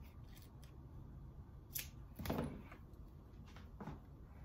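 Faint handling noises from wiring work: a sharp click, then a short scrape that falls in pitch about halfway through, the loudest sound, and a smaller knock near the end.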